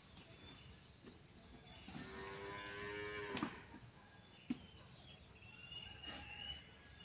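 A cow moos once, one long call starting about two seconds in that bends down in pitch at its end. A sharp click and a short knock follow, and small bird chirps come near the end.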